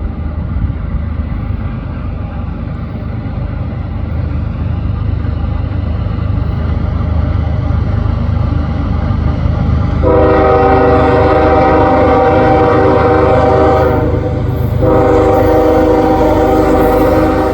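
CSX GE ES44AC-H locomotive's K5HL five-chime air horn sounding for the grade crossing over the rumble of the approaching diesels. The horn is faint at first, swells loud about ten seconds in, breaks off briefly a few seconds later, then sounds again.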